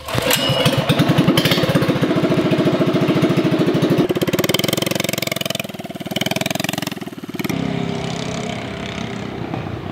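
Minibike's small single-cylinder engine starting up, catching at once and running fast and loud for a few seconds. Its revs rise and fall in the middle, then it settles to a lower, steadier run near the end.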